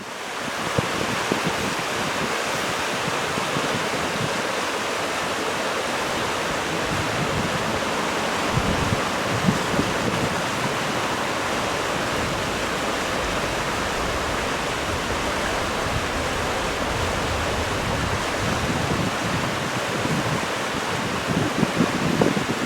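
Steady heavy rain falling, an even hiss of water, with a few low rumbles of wind on the microphone about halfway through and near the end.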